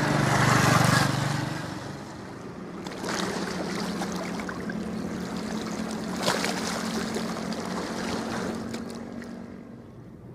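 Wind rushing over the microphone, strongest in the first second and a half, and a low steady engine hum from a ship out on the water.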